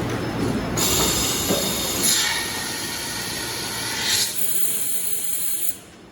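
Toshiba BTD-110 CNC horizontal boring mill during a tool change: a low machine rumble, then about a second in a loud air hiss starts, surging twice, and cuts off suddenly near the end.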